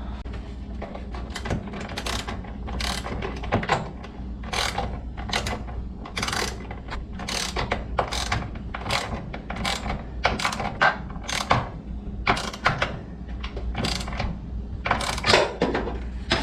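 Socket ratchet wrench clicking in repeated strokes while tightening the vise's mounting bolts and nuts.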